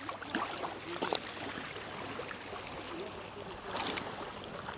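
Sea water sloshing and splashing close to the microphone, with a few sharper splashes about a second in and again near the end.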